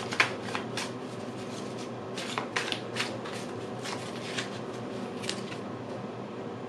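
A deck of oracle cards being shuffled by hand: soft, irregular papery card clicks, in short flurries near the start and again about two to three seconds in, over a steady low hum.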